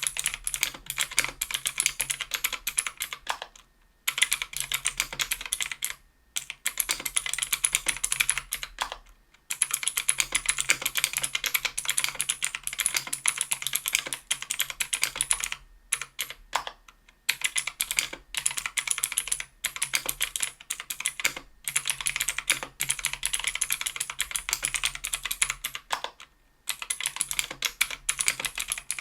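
Fast typing on a 60% aluminium-case keyboard with stock NovelKeys x Kailh Pro Heavy Sage switches (95 g) on an aluminium plate, under GMK keycaps: a dense run of keystroke clicks, stopping briefly several times.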